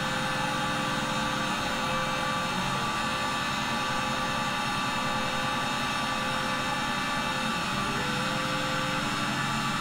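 CNC milling machine running, its spindle turning a fine 0.2 mm engraving cutter as it engraves lettering into a cast iron plate: a steady machine whine with several held tones, a few of which shift pitch in small steps near the end.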